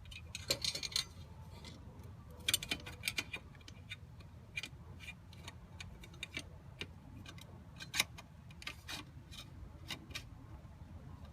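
Irregular clicks and light rattles of parts being handled and fitted into a car's cabin air filter housing as the filter's retaining bar goes back in. The sharpest click comes about eight seconds in.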